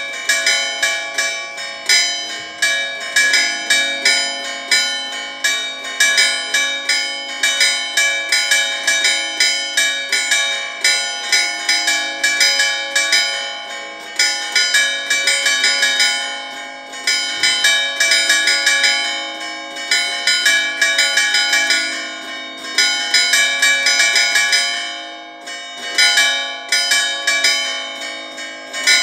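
Festive full swing (distesa) of the two smaller bells of a church tower, tuned to D4 and F4 and swung by motor. Their clappers strike rapidly and unevenly, and the tones ring over one another with only brief lulls. The largest bell, tuned to a flat C4, is silent because its motor is broken.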